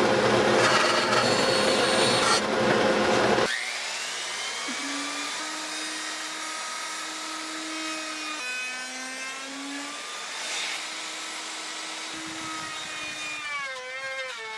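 Loud sawing or sanding of wood for about three and a half seconds, ending abruptly. Then softer held tones that change pitch every second or two.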